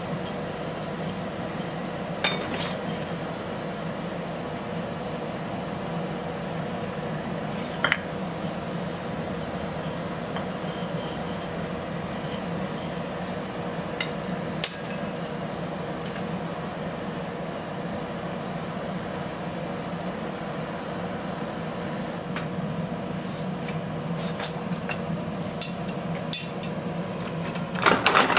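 Steady mechanical hum in a forge workshop, with occasional light metallic clinks of steel and tools. Near the end a rapid run of hammer blows on steel begins, about five strikes a second.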